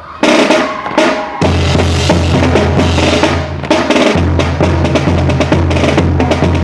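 Drum corps playing a marching cadence on snare and bass drums, starting suddenly with loud strikes just after the start and then running on in a steady, dense rhythm.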